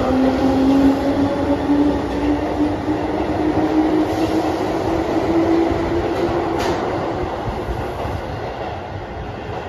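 Keihan commuter train pulling out along an underground platform: its motor whine rises steadily in pitch as it picks up speed, over the rumble of the wheels on the rails. The sound eases off toward the end as the last cars go by.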